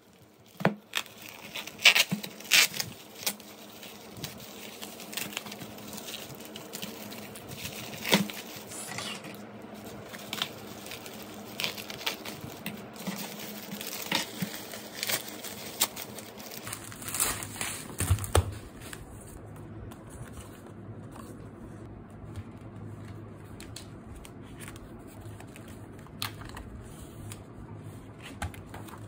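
Bubble wrap and plastic packaging crinkling and rustling as it is handled and pulled off by hand, with sharp crackles through the first two-thirds. After about 19 seconds it settles to quieter rustling of paper and pages.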